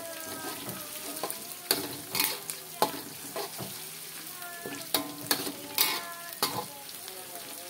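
Shallots, garlic and dried anchovies sizzling in hot oil while a metal spatula stirs and scrapes around an aluminium wok, with sharp clinks of the spatula against the wok every so often.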